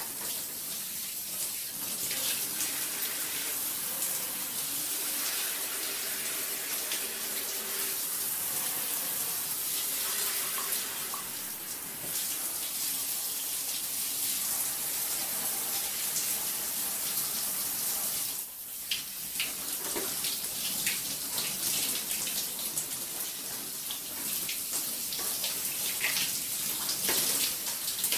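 Shower water running and splattering in a tiled bathtub-shower, a steady hiss that dips briefly about two-thirds of the way through.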